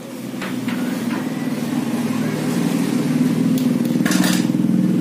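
A motor running steadily with a low hum, growing louder over the first few seconds, with a few short clicks.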